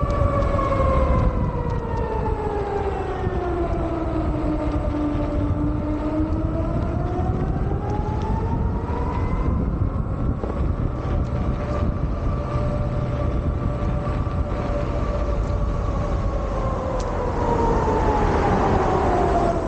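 Civil-defence warning sirens sounding in a test of the public warning system. The main tone slowly sinks in pitch, climbs back and holds, then sinks again near the end, while a second siren holds a steady tone. A low rumble runs underneath.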